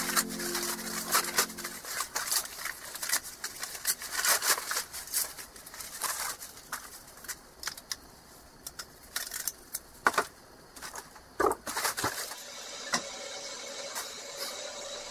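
Paper rustling and light clicks and knocks of small wooden segment rings being picked up and handled on a wooden workbench, irregular and close. The last music notes fade out at the start, and near the end a faint steady hum takes over.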